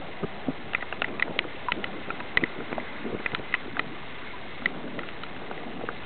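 Bicycle riding in heavy rain on a wet road, heard through a waterproof camera housing on the handlebar: a steady hiss of rain and tyres on wet pavement, with irregular sharp ticks throughout.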